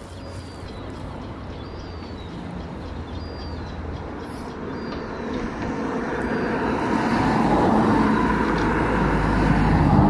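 A two-unit Class 375 Electrostar electric train approaching. Its running noise and rail rumble build steadily from about halfway through and are loudest near the end as it nears.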